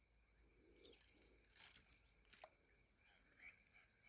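Faint, steady, high-pitched insect chirring with a fast pulsing rhythm, with a few faint ticks over it.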